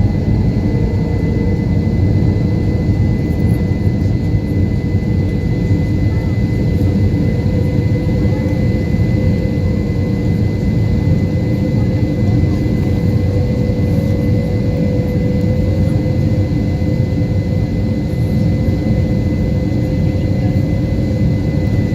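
Airbus A321 jet engines running at high takeoff thrust: a steady loud rumble with a constant thin whine.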